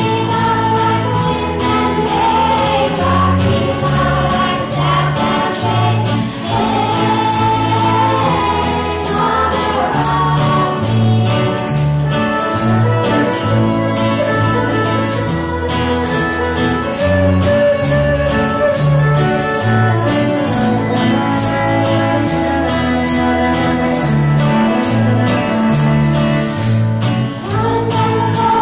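Small live folk band playing a song: electric guitar, acoustic guitar and fiddle under a sung melody, with a tambourine shaken in a steady rhythm.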